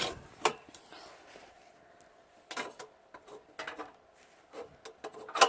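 Scattered sharp clicks and knocks, some in close pairs about a second apart, the loudest near the end, over faint background noise.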